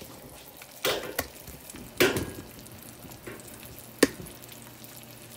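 Kitchen utensil and frying pan knocking and scraping as a small pizza is moved into the pan: a knock about a second in, a louder clatter and scrape about two seconds in, and a sharp click about four seconds in.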